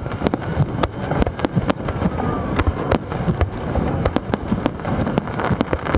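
Aerial fireworks going off: a rapid series of sharp bangs and crackling pops, several a second, over a continuous low rumble of booming shells.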